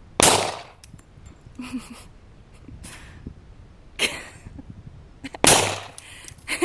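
Two pistol shots from a Glock 35 in .40 S&W, one right at the start and one about five seconds later, each a sharp crack with a short fading tail. Softer, duller noises come in between.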